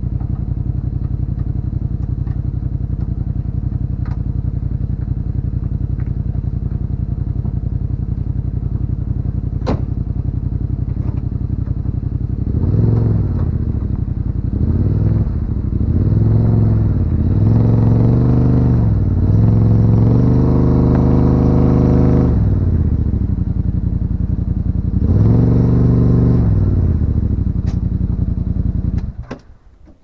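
Yamaha RMAX side-by-side's 999 cc parallel-twin engine idling steadily, then revving up and down repeatedly under load as the vehicle crawls up onto a rock, and cut off a second before the end.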